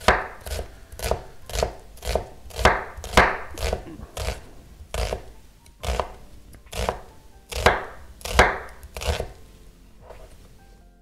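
Large kitchen knife slicing onions on a wooden cutting board: a knock of the blade on the board about twice a second, stopping near the end.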